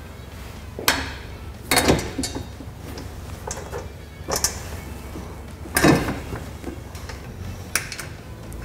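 Steel nerf bar tube and its bolts and spacers knocking against the side-by-side's frame as the bar is handled into place. There are about five separate sharp knocks, the loudest near 2 and 6 seconds in.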